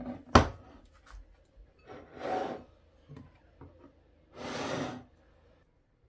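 Kitchen handling sounds while baking: a sharp knock, then two separate scraping strokes about two seconds apart.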